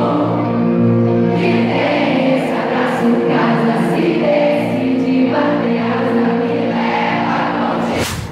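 Live pop concert music heard from within the audience: singing over held chords and a changing bass line. It breaks off abruptly near the end.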